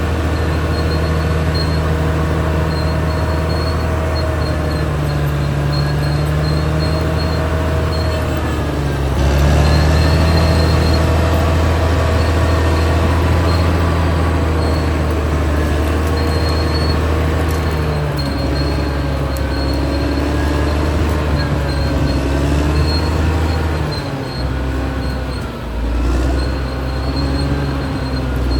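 Caterpillar D6R XL bulldozer at work: its diesel engine running steadily, with whining tones from the machine that waver in pitch. The engine grows louder about nine seconds in and dips briefly near the end.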